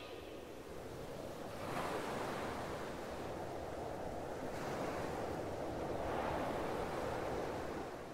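Ocean surf washing ashore, a faint steady rush that swells and eases.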